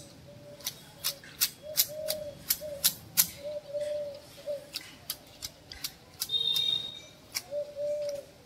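Manual hedge shears snipping a shrub: a run of sharp, irregular blade clicks. A dove coos over and over in the background.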